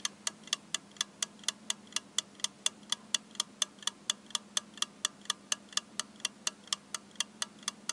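Clock ticking quickly and evenly, about five ticks a second, over a faint steady hum: a time-passing sound effect.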